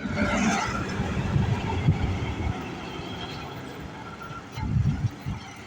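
Diesel water-tank truck engine running with a deep exhaust rumble, loud for about the first two and a half seconds, then easing off, and swelling briefly again near the end.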